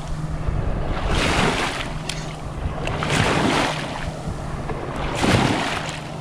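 Boat-wake waves washing ashore, three rushing surges about two seconds apart, with wind buffeting the microphone. The waves are wakes thrown up by big boats speeding through the inlet.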